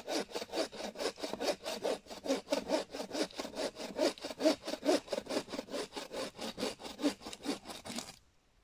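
Hand saw cutting through green pine wood in quick, even strokes, about six a second, stopping abruptly near the end.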